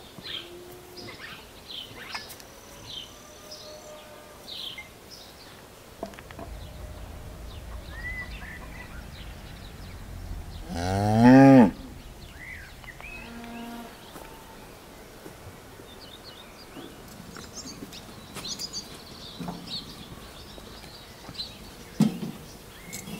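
A cow mooing once, loudly, for about a second.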